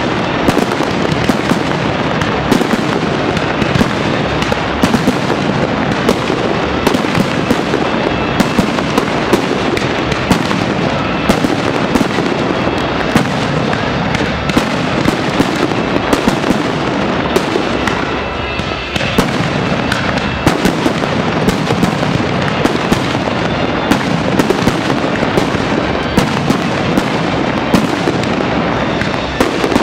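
Fireworks display in a dense barrage: many aerial shells bursting in quick succession, sharp bangs over continuous crackling, with a brief lull about two-thirds of the way through.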